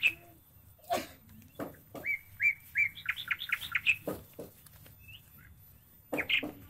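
A songbird singing phrases of short repeated chirps that climb in pitch and quicken, one about two seconds in and another near the end, with a few dull knocks in between.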